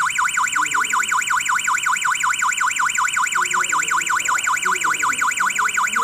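Wireless burglar alarm siren sounding: a loud, high-pitched warble sweeping rapidly up and down about five times a second, without a break.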